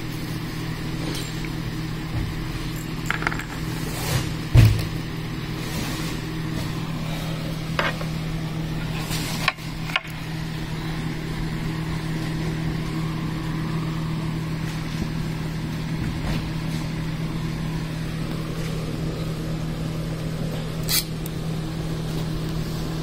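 Scattered knocks and clatter of the metal swivel-base parts being handled and set in place over a steady low hum; the loudest is a thump about four and a half seconds in.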